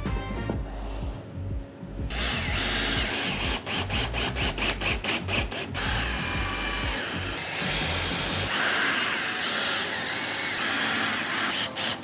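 Power drill driving screws into lumber to fasten metal angle brackets, starting about two seconds in and running in long pulls, its pitch rising and dipping as the screws bite.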